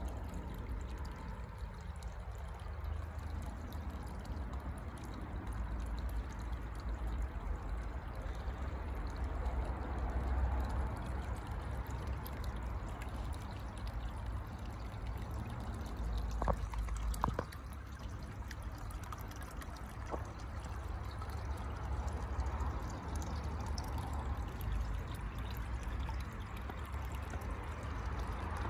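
Water pouring and trickling steadily from a hose outlet into a fish pond, with a low rumble underneath and two brief clicks a little past halfway.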